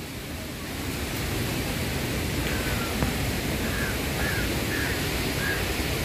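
Steady rushing of a waterfall, with a few faint short chirps over it from about halfway through.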